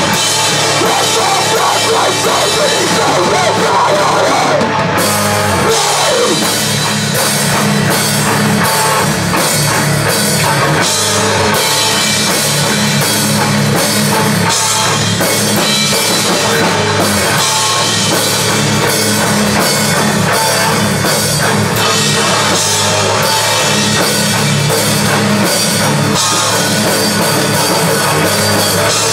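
A rock band playing loud and live: a full drum kit with regular cymbal and snare hits driving under electric guitar and bass.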